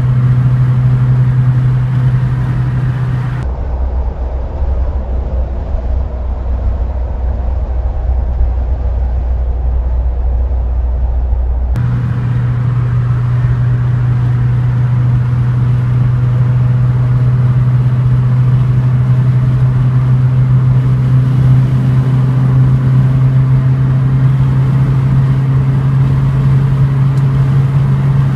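Steady engine and tyre drone heard inside a car's cabin at motorway cruising speed. From a few seconds in it drops to a deeper, duller drone for about eight seconds, then returns to the first, higher hum.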